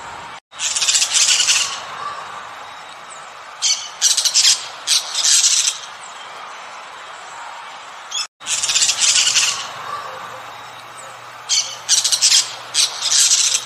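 Toucans calling: loud, harsh rasping calls in clusters, a longer one about a second in and again just past eight seconds, each followed a few seconds later by several short calls in quick succession, over a steady background hiss. The sound cuts out for an instant twice, at about half a second and at about eight seconds.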